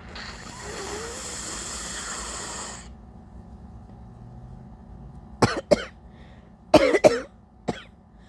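A congested woman blowing her nose hard for about three seconds, a snotty blow. A few seconds later she coughs in two quick pairs of short, sharp coughs, then once more, faintly.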